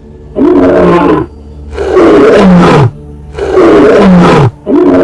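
Lion roaring four times in a row, each roar about a second long and sliding down in pitch.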